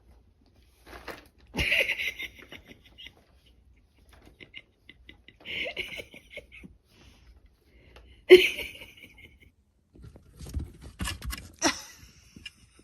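Three short bursts of high-pitched, pulsing laughter a few seconds apart, followed near the end by a cluster of clicks and knocks.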